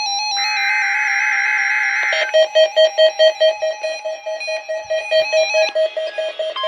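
A mobile phone ringtone playing over the buzzing SAME digital header of a NOAA Weather Radio Required Weekly Test. About two seconds in, the buzz stops and a fast pulsing beep of about five a second takes over. Right at the end, the steady 1050 Hz weather radio alert tone begins.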